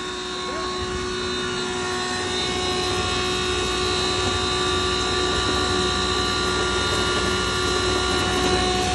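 Double-chamber flour grinding mill running steadily, a machine hum with several steady high tones; a deeper rumble builds about two seconds in.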